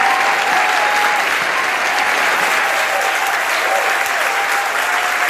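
Large audience applauding steadily, welcoming a speaker onto the stage.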